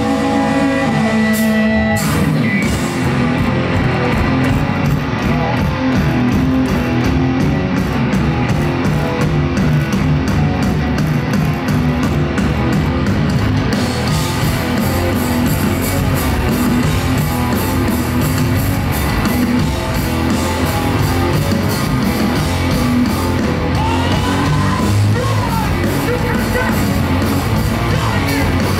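Hardcore punk band playing live and loud: distorted electric guitars, bass and drums with shouted vocals. The full band crashes in about two seconds in after a couple of seconds of held ringing tones, and the cymbals grow brighter about halfway through.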